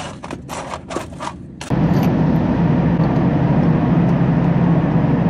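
Small metal washers clinking in a steel drawer as a hand picks through them, then, about a second and a half in, the steady drone of an engine starts suddenly and carries on.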